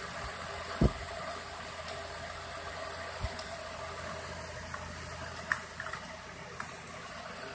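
Vintage Rex Cole hassock fan running steadily: a constant rush of air over a low motor hum. A short low thump about a second in and a softer one a few seconds later, with a few light clicks.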